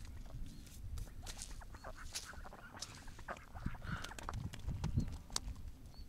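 Domestic ducks quacking on and off at the water's edge, over a steady low rumble of wind on the microphone.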